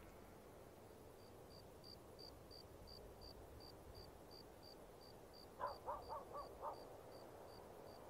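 Faint night ambience: a cricket chirping steadily about three times a second, starting about a second in. A little past the middle, a bird calls five times in quick succession.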